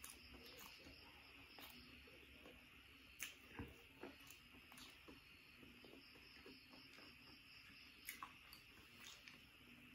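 Very faint eating by hand: scattered soft mouth clicks and small taps as rice is picked off a banana leaf and chewed, over a steady faint high hiss.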